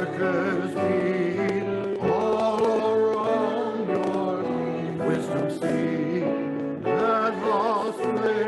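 A hymn sung by voices with instrumental accompaniment, held notes moving at a steady hymn pace.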